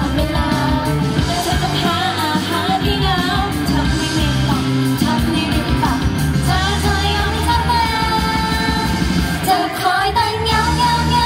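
Upbeat pop song with a woman singing, played loudly over a stage sound system.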